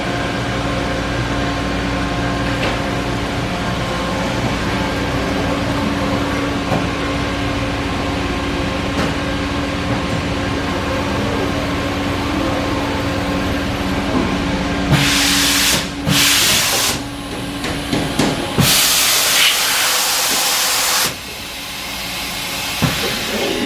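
Haas EC400 horizontal machining center running with a steady hum and a held tone. In the last third come three loud bursts of hissing air, the last and longest about two seconds.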